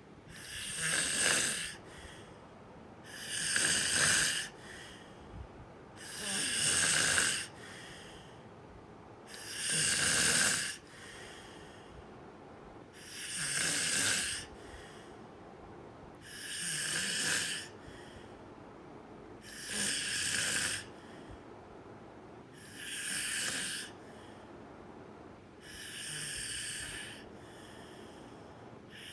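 Snoring in a steady rhythm, one long snore about every three seconds, with quiet breathing between.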